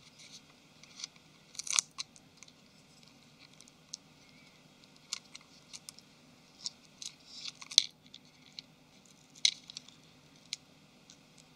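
Scattered small clicks and scratches of a Nexus 5's main camera module and its flex cable being pried out of the plastic phone housing with a screwdriver and fingers.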